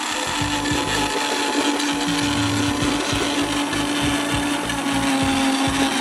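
Electric blender running steadily, a constant motor tone over a rushing noise.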